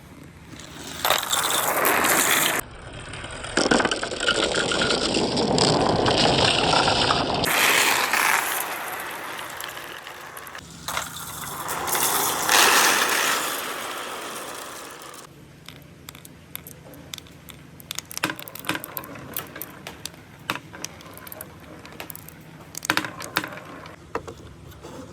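Marbles running down a handmade marble run: a loud, continuous rolling rush for about the first fifteen seconds, then a quieter stretch of many quick clicks and clacks as marbles knock along the track pieces.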